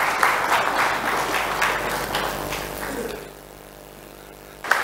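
Audience applauding, many people clapping at once, dying away about three seconds in; after a short quiet spell the applause starts again suddenly near the end.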